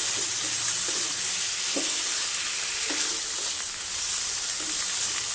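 Chicken breast strips with onion and ginger sizzling steadily in a little oil in a non-stick pan, stirred and turned with a wooden spatula.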